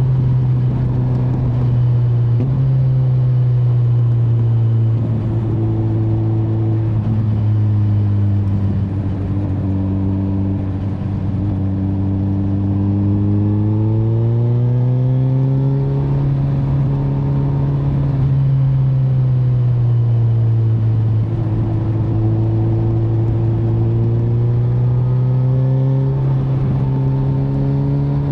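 2025 Kawasaki Z900's inline-four engine running on the move, its pitch slowly sinking and rising with throttle and speed: it drops a few seconds in, climbs again around the middle, then falls and rises once more near the end.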